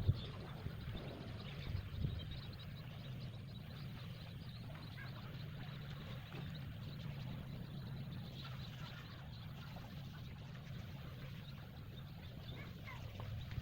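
Outdoor ambience of scattered faint bird chirps over a steady low hum, with two handling knocks near the start.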